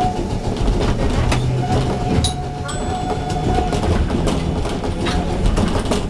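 Keifuku Electric Railroad (Randen) Kitano Line car running along the track, a steady low rumble with the wheels clicking over rail joints a few times. A thin steady whine sounds for about two seconds midway.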